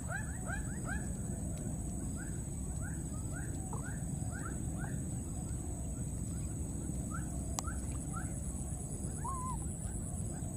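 Baby macaques calling with short squeaky chirps, about three a second at first and then more sparsely, with one wavering call near the end. A steady high-pitched whine runs underneath.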